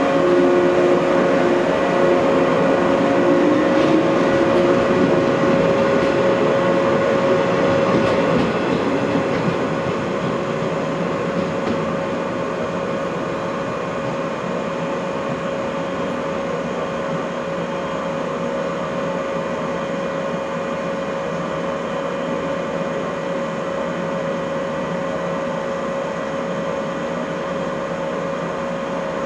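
JR West 115 series electric train pulling away: its motor and running noise rises in pitch over the first few seconds as it gathers speed, then fades over the next several seconds as the train leaves. A steady hum carries on afterwards.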